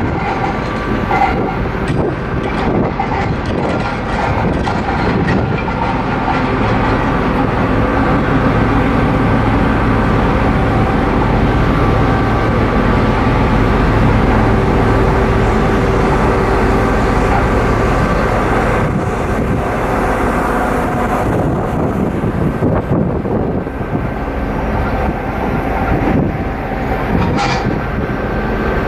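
Ferry engines and machinery running steadily as the vessel gets under way: a continuous low rumble with several steady hums over it.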